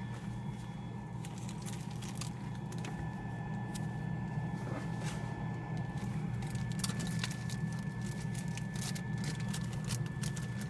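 A steady low mechanical hum throughout, with scattered light clicks and crackles of handling and rustling.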